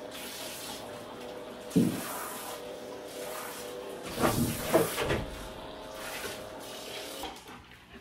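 Water running from a handheld shower sprayer onto a dog's wet coat: a steady rush with a faint steady hum, which stops near the end. A thump comes about two seconds in, and a few louder sounds come about halfway.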